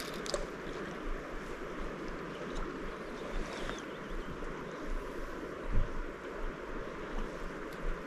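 Shallow water washing and gurgling steadily along the shore, with a few small clicks and a low bump about six seconds in.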